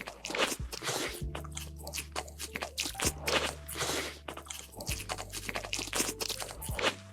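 Crunchy food being bitten and chewed close to the microphone, in repeated short crunches, over background music with a steady bass line.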